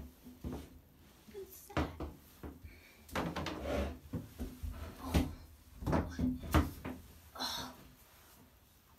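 Several irregular dull knocks and bumps with rustling, from a person shifting about in a bathtub with a large brass instrument. The loudest knocks come about five and six and a half seconds in.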